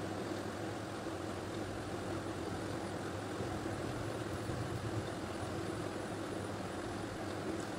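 Steady low mechanical hum under an even hiss, with no change in level.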